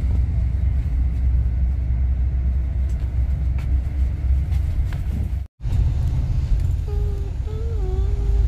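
Steady low rumble of a double-decker coach cruising on the highway, heard inside the upper-deck passenger cabin. The sound cuts out for a moment about five and a half seconds in.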